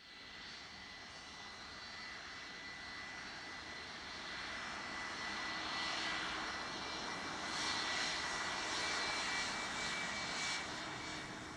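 Boeing 757-2K2 airliner's twin jet engines running as it rolls past along the runway: a steady rushing noise with a high fan whine. It grows louder as the jet draws level and eases slightly near the end.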